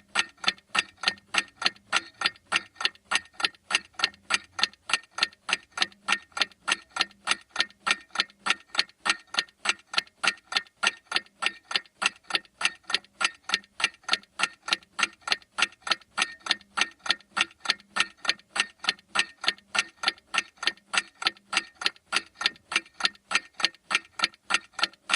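Clock ticking steadily, about two even ticks a second.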